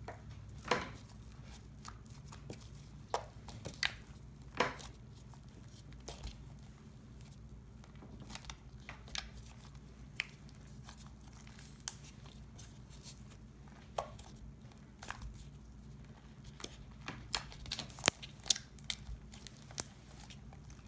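Homemade glue slime being kneaded and squeezed by hand, giving off irregular small sticky pops and clicks, with a quick cluster of them near the end, over a faint low hum.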